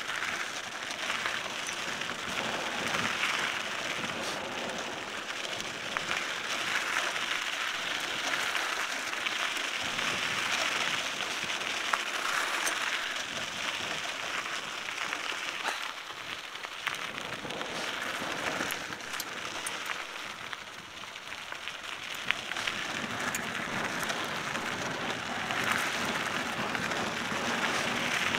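Cannondale mountain bike rolling down a dirt single-track: a continuous crackling rush of tyres on dirt and gravel with wind on the helmet microphone, broken by a few sharp clicks.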